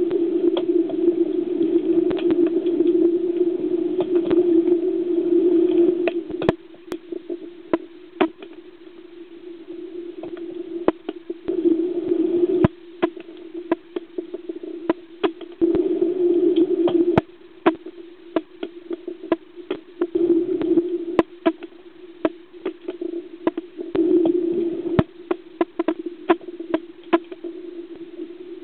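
Underwater hockey sticks clicking and knocking against the puck, in an irregular run of sharp strikes, some louder than others. Under them is a steady hum that comes and goes several times.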